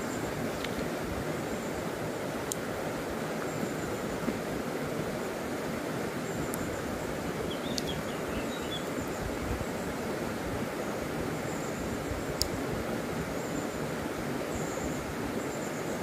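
Steady rush of a flowing stream over stones, with a few faint, sharp ticks scattered through it.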